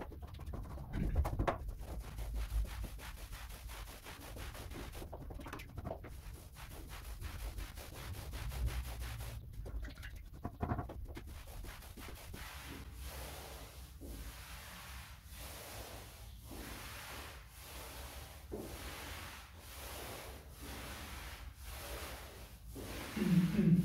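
Paint roller being worked up and down a wall, applying primer: a soft rubbing swish with each stroke, settling into an even rhythm from about halfway through. A low thump comes near the end.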